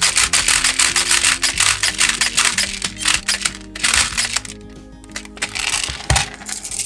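Background music with steady held notes, over a fast run of small clicks from plastic airsoft BBs being loaded into a speedloader. The clicking thins and drops in level about four and a half seconds in.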